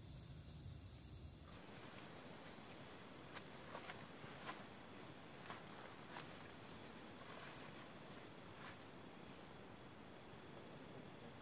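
A faint cricket chirp repeating evenly, short high trills about twice a second, with a few soft ticks. A low hum stops about a second and a half in.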